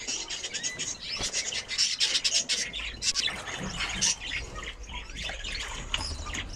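Many budgerigars chattering together: a steady stream of quick, overlapping high chirps and squawks.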